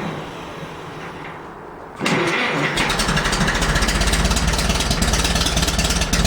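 Farmall MD tractor engine being cranked on a cold start. About two seconds in the starter engages and the engine turns over with a loud, fast pulsing that runs on without yet settling into a steady idle.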